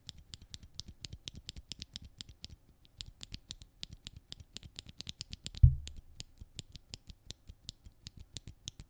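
Typing on a mechanical keyboard fitted with Akko CS Lavender Purple tactile switches: a rapid, continuous run of sharp keystroke clicks, about eight a second, with one much louder low thump a little past halfway. A test of the switches' spring ping, which lube only partly removes.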